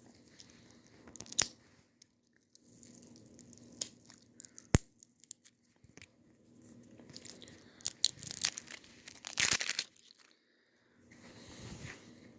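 Plastic wrapping on a squeeze-candy tube being picked at and torn open, with scattered crinkling crackles and clicks. There is one sharp click about five seconds in, and a louder run of crackling and tearing near the end.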